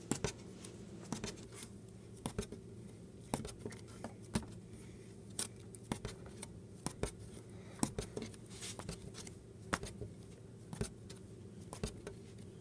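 Small plastic Lego piece bounced repeatedly on a wooden surface: short, sharp clicks at irregular spacing, roughly one or two a second, over a steady low hum.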